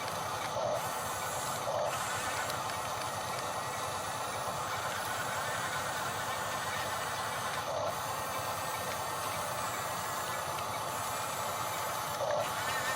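Steady whirring hiss of a radio-controlled construction model running, with a few short bumps about a second in, near two seconds, near eight seconds and near the end.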